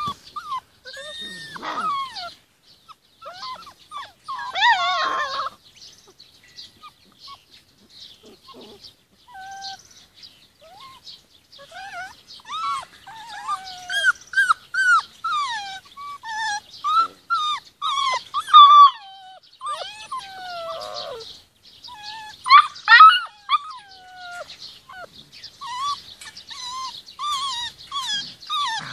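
Young Rhodesian Ridgeback puppies whining and whimpering: many short high cries that slide down in pitch, a few at first, then coming thick and fast in the second half.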